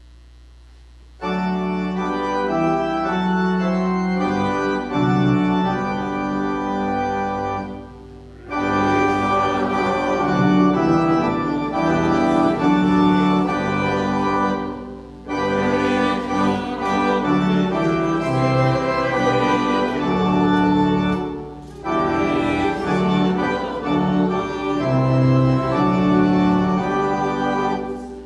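After about a second of low electrical hum, a church organ starts playing sustained chords. It plays in four phrases of several seconds each, with a short break between phrases.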